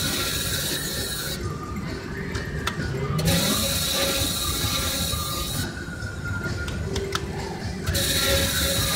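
Three-reel Blazing 7's slot machine spinning again and again: the reels whir with a high hiss, then stop with a few sharp clicks, a new spin starting about every four and a half seconds. Other casino machines chime and jingle in the background.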